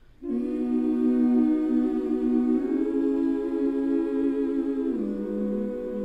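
Background music of sustained, voice-like humming chords that come in suddenly just after the start and shift to a new chord twice.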